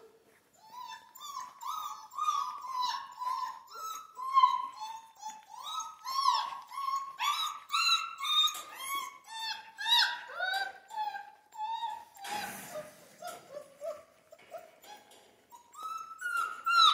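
Central Asian Shepherd puppies whining and yelping over and over, short high-pitched cries coming a few a second, with a brief rustle about twelve seconds in.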